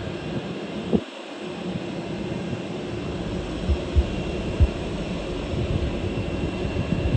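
Jet airliner engines running with a steady rumble and hiss, with a few short low thumps over it.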